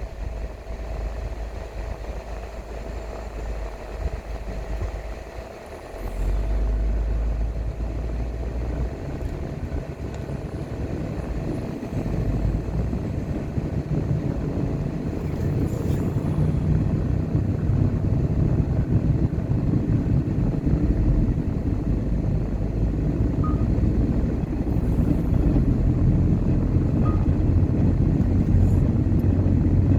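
Car driving on a road, a steady low rumble of engine and tyres with a faint constant hum, briefly quieter and then louder again about six seconds in, building gradually as it goes.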